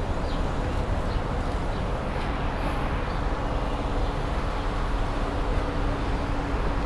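Steady city street traffic rumble, with a thin steady hum from about three seconds in until near the end.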